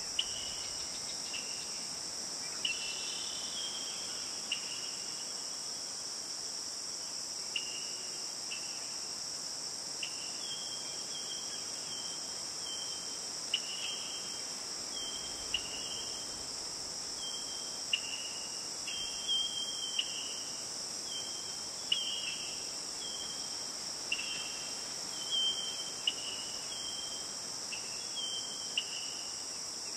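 A steady, high-pitched insect chorus, with short falling chirps repeating over it. The chirps come more often after about ten seconds in.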